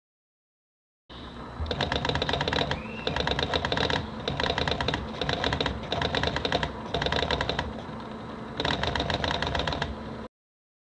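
TRS-80 Pocket Computer thermal printer printing. It makes five bursts of fast ticking, each one to two seconds long, separated by short pauses of quieter running.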